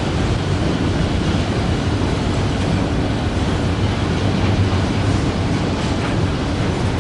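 Autorack cars of a freight train rolling past close by: a steady rumble and rush of steel wheels on the rails.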